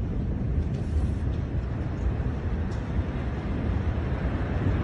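Steady low rumble in the aftermath of a massive explosion, with a few faint clicks about a second in.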